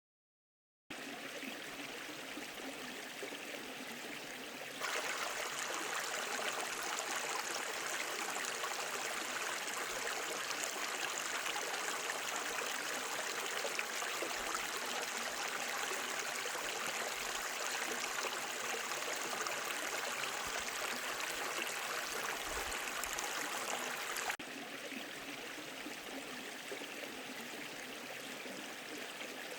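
Mountain valley stream rushing and splashing over rocks, a steady wash of water noise. It starts about a second in, turns abruptly louder about five seconds in, and drops back to the softer level near the end.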